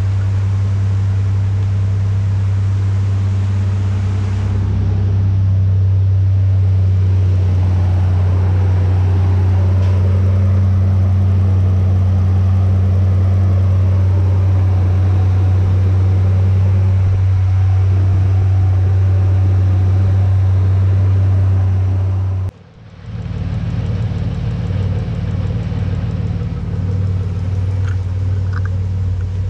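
Nissan VG30 3.0-litre V6 idling steadily on its first start with newly fitted LS2 440cc top-feed injectors, the idle not yet tuned. The sound cuts out briefly about three-quarters of the way through, then the same steady idle resumes.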